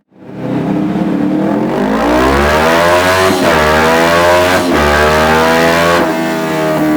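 Suzuki GS 500's air-cooled parallel-twin engine, fitted with a Dominator aftermarket exhaust, accelerating with a rising exhaust note. The pitch drops sharply twice, about three and four and a half seconds in, and climbs again each time, as with quick upshifts.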